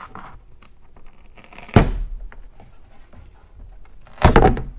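A skid plate being pulled off the underside of a front bumper, tearing free of double-stick tape: two sudden loud noises, one about two seconds in and a longer one near the end, with small scrapes and handling sounds between.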